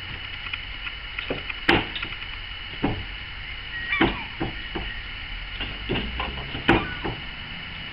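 Trials unicycle hopping on wooden pallets: an irregular series of knocks and thuds as the tyre lands and bounces on the boards, the loudest about two, three, four and nearly seven seconds in.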